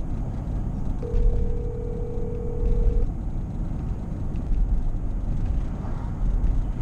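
Phone ringback tone from a call being placed: a steady two-second tone that starts about a second in, then a pause of about four seconds, over a constant low rumble.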